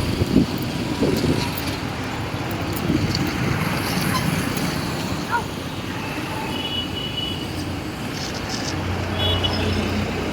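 Road traffic noise, a steady rush of passing vehicles. A brief high tone sounds twice and an engine hum rises near the end.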